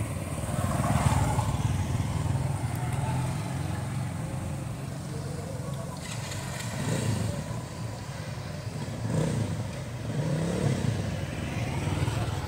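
Motorbike engines running on the road, swelling and fading several times over a steady low rumble.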